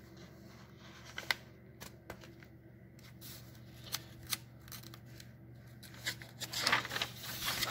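Paper instruction booklet pages handled and turned: a few sharp ticks, then a longer rustle of paper near the end.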